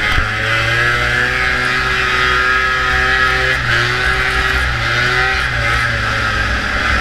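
Vintage two-stroke snowmobile engine running hard under racing throttle, its pitch climbing and dipping a few times, over a steady rushing hiss.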